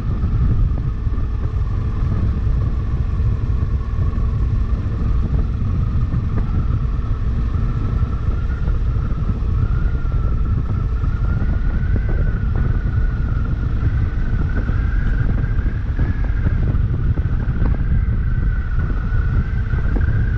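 Honda CRF1100L Africa Twin's parallel-twin engine running at a steady cruise, heard as a dense low rumble mixed with wind noise on the mounted camera's microphone. A whine sits above it and rises slowly in pitch as the bike gathers a little speed.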